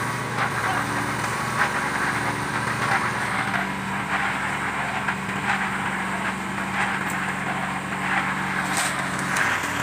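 An engine running steadily at an even pitch, with scattered scraping and knocking sounds over it.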